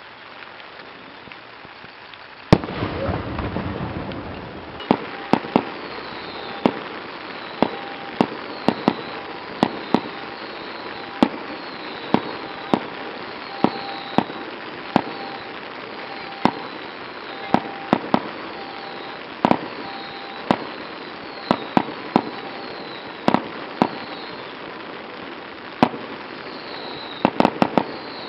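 A fireworks display: an aerial shell bursts with a loud boom and a deep rolling rumble about two and a half seconds in. A string of sharp, irregularly spaced cracks follows, about one a second, bunching together near the end.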